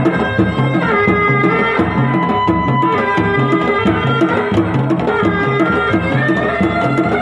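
Sundanese tarompet (double-reed shawms) playing a piercing melody of long held notes that step from pitch to pitch, over steady, fast traditional drumming.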